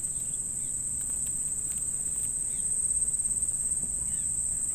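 Chorus of insects such as crickets or cicadas: a steady, high-pitched trill that never lets up, with a few faint short chirps over it.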